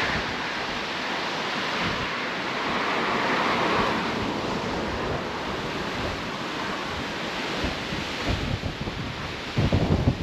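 Gusty wind rushing through tree leaves and buffeting the microphone, with heavier low rumbling gusts near the end.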